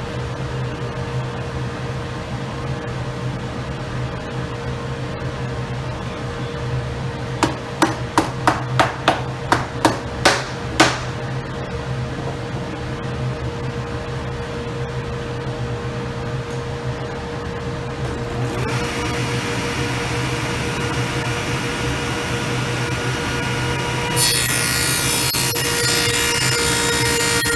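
Table saw with a stacked dado blade: a quick run of about ten sharp knocks a little before the middle, the loudest sound, then the saw coming up to speed about two-thirds in. Near the end the dado stack starts cutting into black walnut with a steady, hissing cutting noise over the motor.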